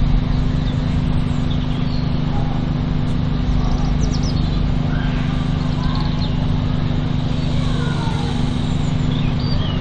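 A steady mechanical hum from a small motor running at constant speed, unchanging throughout.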